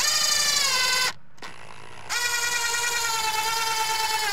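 Power drill driving GRK self-drilling trim screws into a PVC door jamb: a short run of the motor's whine, a pause, then a longer run of about three seconds, the pitch sagging as each screw draws in tight.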